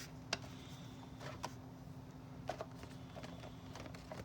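Light clicks and taps of small plastic toy-wardrobe parts being handled and slid into their slots, a few scattered at irregular times.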